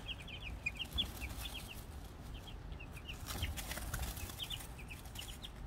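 A brood of nine-day-old meat chicks peeping: many short, high cheeps, scattered and overlapping, with a few soft clicks among them.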